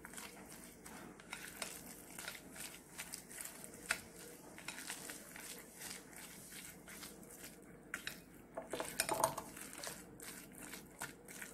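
Silicone spatula stirring and scraping grated raw mango in a glass bowl: soft irregular scraping with light taps against the glass.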